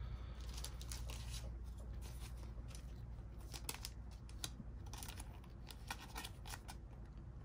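Baseball trading cards being slid into soft plastic sleeves: faint scattered rustles and small clicks of card and plastic, over a low steady hum.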